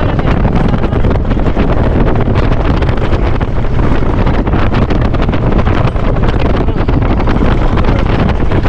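Wind buffeting the microphone, loud and steady, over the running of an open-top Jeep Wrangler driving across desert sand.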